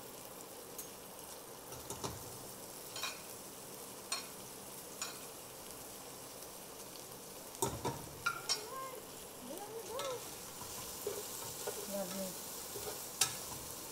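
A metal slotted spoon clinks against a plate and the rim of a pot as cooked pork and chicken pieces are put back into the pot, then scrapes as the meat is stirred with sautéed garlic and onions, over a light sizzle of frying.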